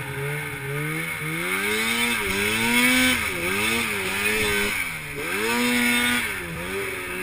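Two-stroke mountain snowmobile engine revving up and down as the sled plows through deep powder, its pitch dropping and climbing again about four times.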